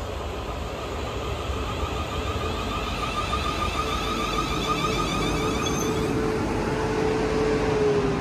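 Siemens Desiro Class 450 electric multiple unit arriving at a platform, its traction motors giving a warbling electric whine over wheel rumble, growing louder as it passes. Near the end a tone drops in pitch as the train brakes to a stop.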